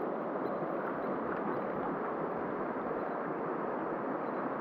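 Shallow mountain stream running over cobbles: a steady rush of water.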